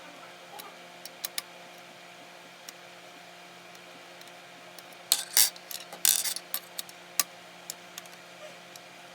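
Small parts and tools being handled on an Ender 3 3D printer: scattered light clicks, with a louder run of clatter and rustling about five seconds in, over a steady low hum.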